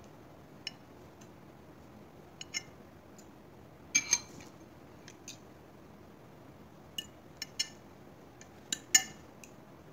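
A metal fork tapping and clinking against a china plate in scattered short, sharp strikes, the loudest pair about four seconds in and another near the end.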